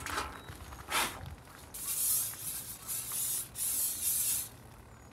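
Aerosol can of vegetable-oil cooking spray hissing in several short bursts as it is sprayed onto a grill grate.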